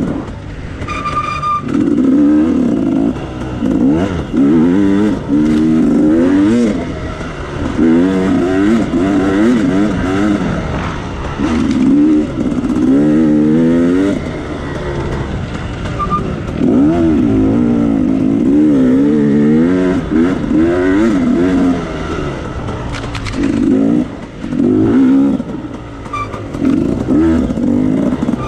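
Dirt bike engine revving hard and backing off over and over, its pitch climbing and dropping every second or two, with scattered knocks and clatter.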